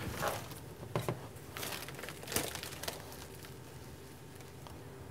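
Plastic pneumatic tubing being handled and pulled into place: soft rustling with a few light knocks, the loudest about two and a half seconds in.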